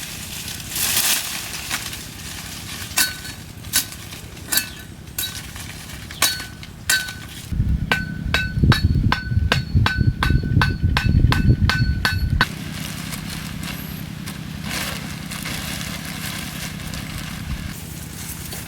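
Sharp clinks of something hard striking a ringing object, each strike leaving a short ring at the same pitch: single strikes a second or so apart at first, then a rapid run of about four strikes a second with a heavy low thudding between about 8 and 12 seconds in.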